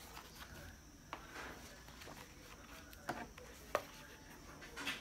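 Paper planner being opened and its pages handled: soft rustling of paper with a few sharp taps or clicks, three of them standing out.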